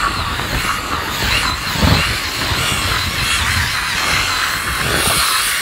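Skull Shaver Pitbull Platinum Pro, a rotary electric head shaver, running as it is passed over short stubble on the scalp: a steady high buzz with an uneven low rumble beneath it.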